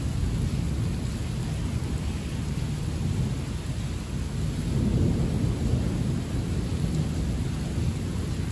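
Heavy rain with a low, steady rumble of thunder that swells a little about five seconds in.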